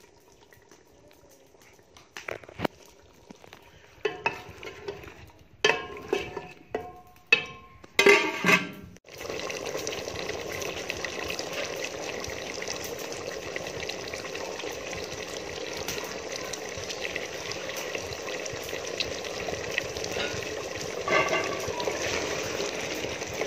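Chicken and potato curry bubbling and sizzling in an aluminium pot over a wood fire: a steady hiss that sets in about nine seconds in. Before that there are a few short metallic clinks with a brief ring, and near the end a ladle scrapes as it stirs the pot.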